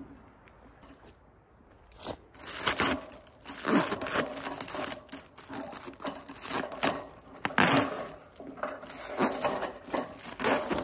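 Clear protective plastic film being peeled and torn off metal roofing ridge cap and crumpled in a gloved hand: irregular crinkling and tearing in uneven bursts, starting about two seconds in.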